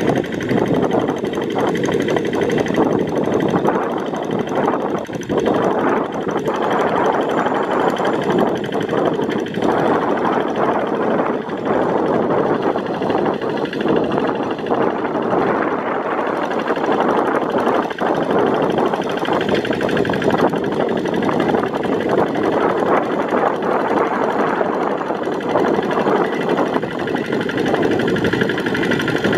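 Kubota RD85 single-cylinder diesel engine of a Quick G1000 Boxer hand tractor running steadily while the tractor plows a flooded rice paddy.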